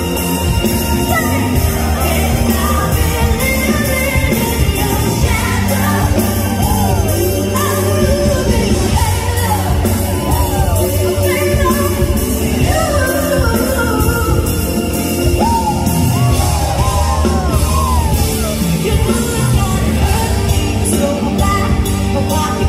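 A female singer singing live into a microphone over a full band, her voice sliding up and down in sweeping runs over a steady bass line.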